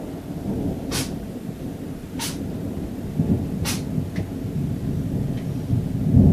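Thunder rumbling and rolling, swelling near the end, with three sharp clicks in the first few seconds.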